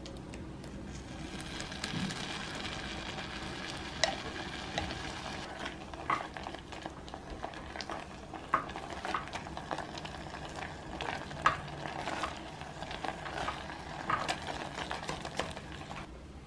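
Food sizzling as it fries in a pan, stirred with a utensil that clicks and scrapes against the pan at irregular moments.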